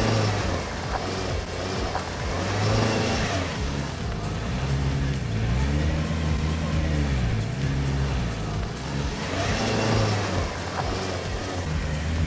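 Off-road vehicle's engine revving up and easing off about four times, pitch rising and falling with each pull while it is driven through mud.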